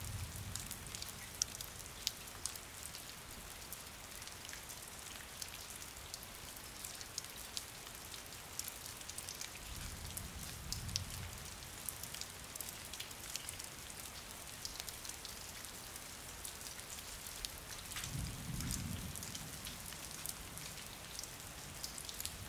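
Steady rain falling, with many sharp, close drops ticking on a hard surface. A low rumble swells and fades three times: at the start, about ten seconds in, and about eighteen seconds in.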